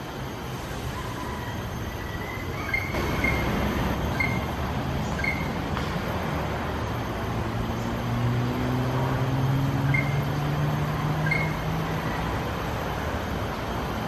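Greater racket-tailed drongo giving short, clear whistled notes, a few scattered through, over steady traffic noise. In the second half a passing vehicle's engine drone rises in pitch and is the loudest sound.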